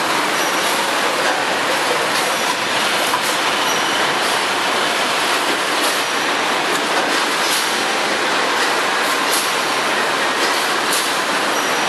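Automatic detergent packaging line running: a steady, loud machine din of hiss and rattle, with short sharp clacks about once a second at uneven spacing.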